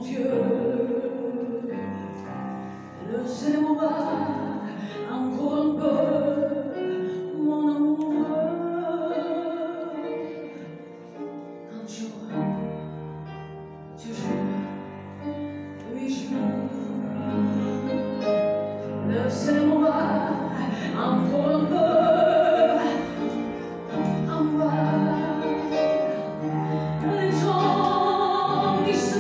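A woman sings a French chanson with vibrato on the held notes, over a live band led by piano.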